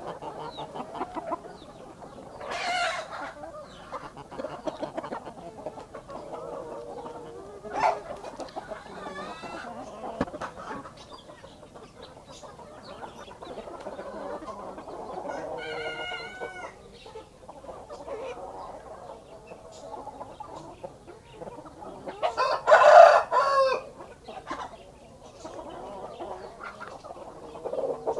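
A flock of chickens clucking continuously while feeding. Roosters crow now and then, and the loudest crow comes about two-thirds of the way through.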